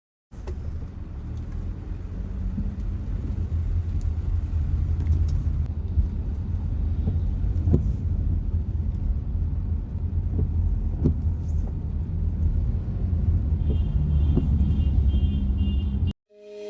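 Steady low rumble of a car driving, with a few faint knocks. It cuts off suddenly near the end.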